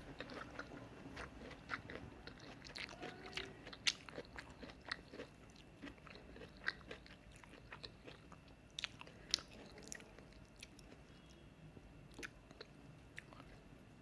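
Close-up mouth sounds of a person eating udon noodles with tofu and vegetables: faint, irregular wet clicks and smacks of chewing, a few sharper ones here and there.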